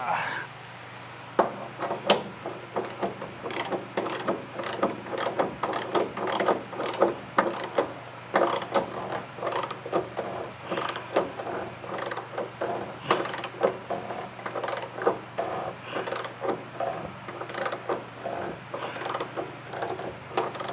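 A ratchet being worked to tighten something down, its pawl clicking over and over at about two to three clicks a second. The clicking starts about a second and a half in and keeps on, over a faint steady hum.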